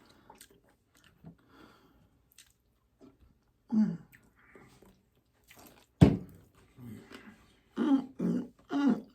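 Faint small clicks of eating, then a single sharp sound about six seconds in, followed by a person clearing their throat with short voice sounds near the end.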